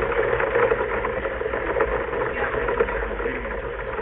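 Heavy thunderstorm rain falling steadily, a dense patter of drops, with no thunderclap.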